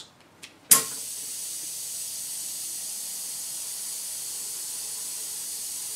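A sharp click just under a second in, then a steady high hiss of compressed air exhausting through the four-way valve's throttled exhaust speed control and muffler. The air cylinder of the pneumatic light lifter retracts slowly and lowers the arm.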